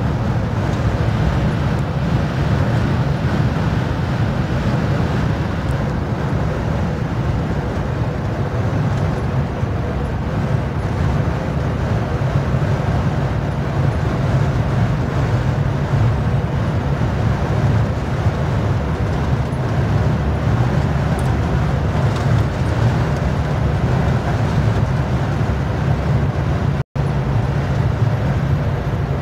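Steady engine drone and road noise inside a truck cab at highway speed, strongest in the low rumble. It cuts out for an instant near the end.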